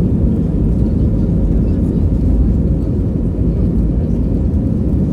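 Cabin noise inside an Airbus A320 moving along the ground: a steady low rumble of the jet engines and the rolling wheels, even in level throughout.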